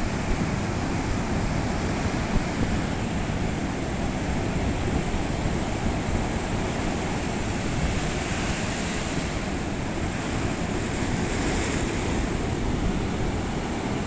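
Mediterranean surf: waves breaking and foam washing up the shore in a steady, continuous wash.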